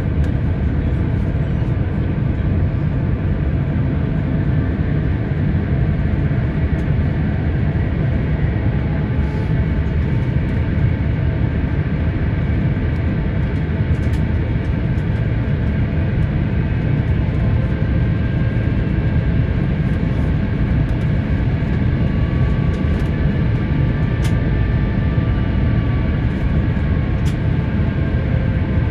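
Airliner on approach, heard inside the cabin: a steady rumble of engine and air noise, with faint whining tones that drift slowly in pitch.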